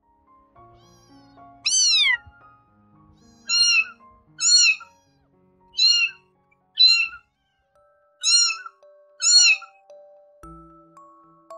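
A young kitten meowing seven times, high-pitched: a longer first call that falls in pitch, then six short meows about a second apart.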